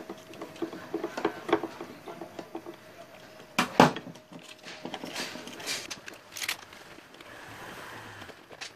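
Handling sounds at a homemade drum sander's sanding drum: a run of light clicks, one sharp knock a little before four seconds in, then rough scraping as an abrasive sleeve is pushed onto the drum.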